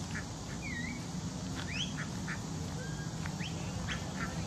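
A small flock of ducks quacking in short, scattered calls while being herded by dogs, over a low steady hum.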